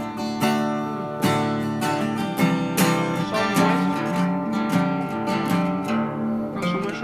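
Background music: strummed acoustic guitar chords with a steady rhythm.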